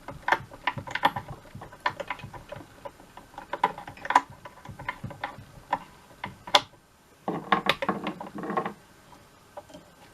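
Irregular light clicks and ticks of fly-tying tools at the vise as thread and peacock herl are wrapped on the hook shank, with a short buzz a little past the middle.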